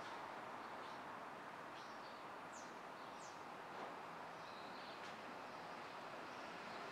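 Faint, steady hum of distant city street traffic, with small birds chirping now and then; two sharper high chirps come about halfway through.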